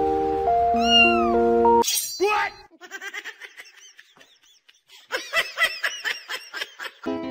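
Background music stops about two seconds in, and a cat gives one loud meow. A run of short, high-pitched mews follows, quicker and denser in the second half.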